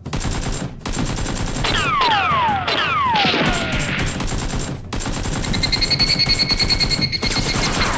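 Rapid automatic gunfire sound effects laid over Nerf blasters being fired. Several falling whistling tones come about two seconds in, and a steady pulsing tone sounds in the second half.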